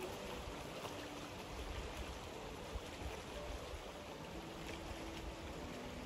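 Shallow creek flowing over a rocky bed: a steady sound of running water.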